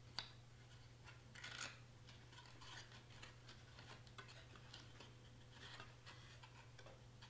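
Faint rustling and light clicks of white cardstock being folded and pressed into shape by hand. There is one sharp click just after the start and a slightly louder rustle about a second and a half in.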